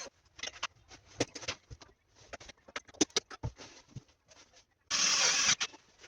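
Irregular small clicks and knocks of metal hinges and screws being handled and driven into a refrigerator door, with a louder rasping burst lasting under a second about five seconds in.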